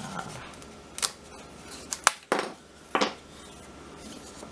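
Light clicks and taps of small thin wooden parts being handled and fitted together, a handful of sharp knocks roughly a second apart.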